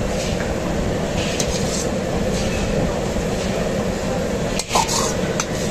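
Steady rumbling noise of a restaurant kitchen, with a gas burner alight. Near the end come a few short scrapes and taps of the wok against the plate as the chilli paneer is slid out.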